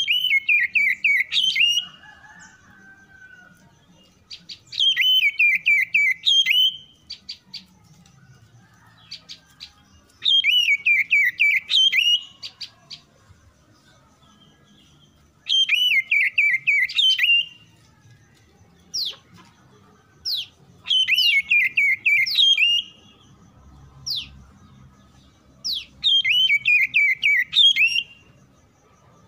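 Oriental magpie-robin (kacer) singing: six loud phrases about five seconds apart, each a quick run of rising and falling notes lasting under two seconds, with a few short, sharp falling whistles between them.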